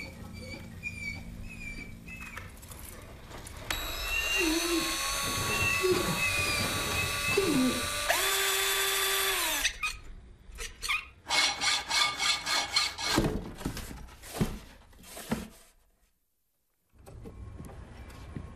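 Mechanical tool sounds: a whirring, drill-like machine sound with tones that slide up and down for several seconds, then a quick run of metallic clicks and clanks as a spanner turns a nut. A moment of silence follows near the end.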